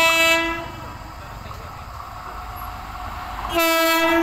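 Electric locomotive's horn sounding a steady single note that cuts off about half a second in, then the rumble of the approaching train growing louder, then a second short horn blast near the end.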